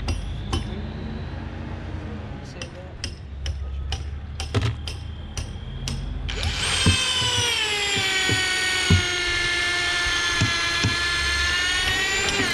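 Cordless drill boring a long bit straight down through a stacked wall log. It starts about halfway in, its pitch drops a little as the bit bites, then it runs steadily under load and stops suddenly near the end. Before it, scattered clicks and knocks of tools.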